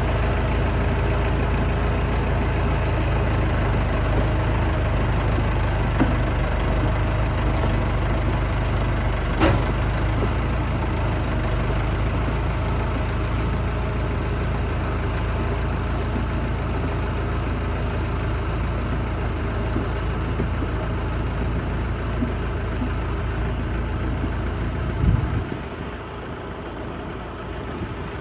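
John Deere 450 crawler dozer's engine running steadily under load as the dozer reverses, winding new cable onto its 3325 winch. Near the end there is a thump, and then the engine's low rumble drops sharply away.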